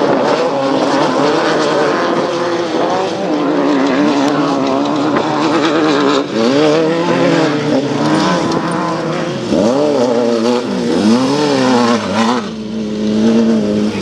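Off-road race buggy's engine running loud, its pitch rising and falling over and over as the throttle is worked, with a short drop near the end.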